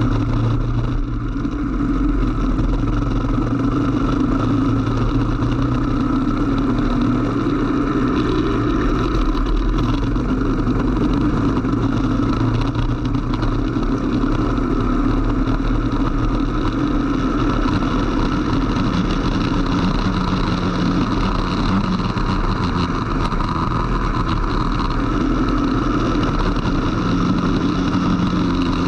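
Racing kart engine running hard, heard onboard, its pitch shifting as the kart speeds up and slows through the corners, over a steady hiss of wind and wet-track spray.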